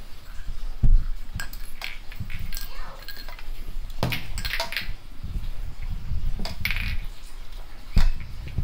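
Kitten playing with small objects on a tiled floor: scattered light clicks, knocks and clinks, with sharper knocks about a second in, around four seconds and near the end.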